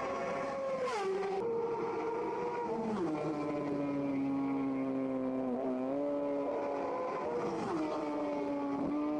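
Racing motorcycle engine at high revs, heard from onboard. Its pitch drops sharply in steps about one, three and seven and a half seconds in, with a brief dip and recovery about five and a half seconds in.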